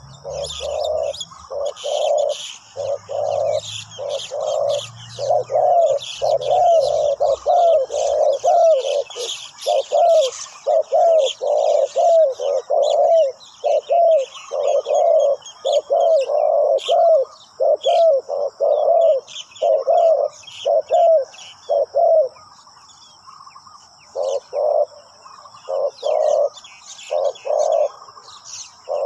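Spotted doves cooing, short rolling coos repeated almost without pause, breaking off for a couple of seconds near the end before a few more coos. Smaller birds chirp thinly in the background.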